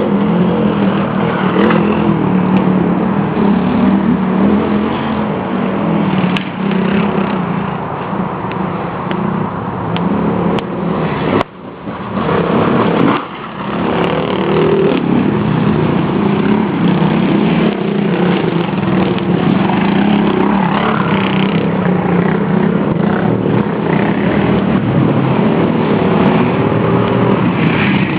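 Dirt bike engine running steadily under way. The sound drops off briefly twice, about eleven and a half and thirteen seconds in, then picks back up.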